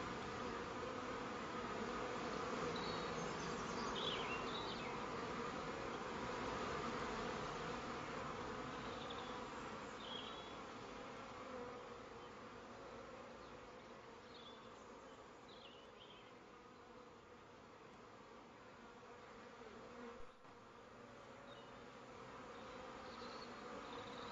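Steady buzzing drone with short high chirps every few seconds; it fades toward the middle and grows louder again near the end.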